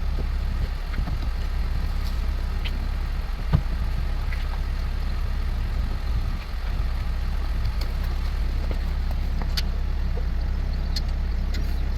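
Engine idling steadily as a constant low rumble, with a few light clicks and one sharper knock about three and a half seconds in.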